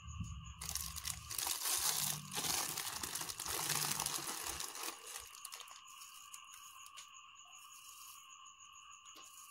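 Small plastic bag crinkling and rustling as it is picked up and handled, for about four seconds, then dying away.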